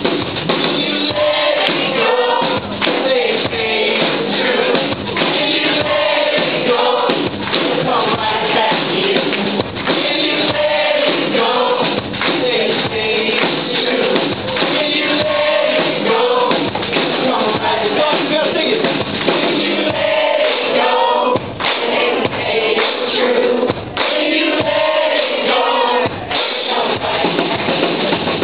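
Live pop-rock band playing with a steady drum beat while several voices sing together, recorded loud and dull-toned from within the audience.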